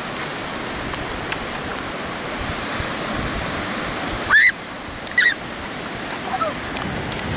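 Ocean surf washing in with wind on the microphone. Two short high-pitched cries cut through about four and five seconds in, followed by a fainter falling cry.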